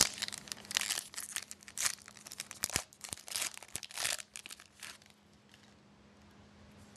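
Crinkling and tearing of a 2011-12 Pinnacle hockey card pack wrapper as it is ripped open, a rapid irregular crackle that stops after about four and a half seconds.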